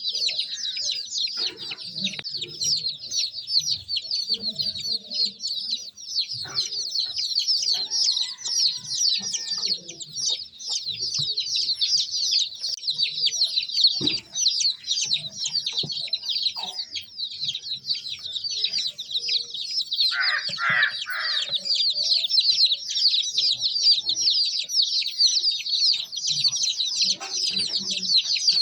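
A crowd of baby chicks cheeping without a break, many high-pitched peeps overlapping, with a lower, louder call about two-thirds of the way through.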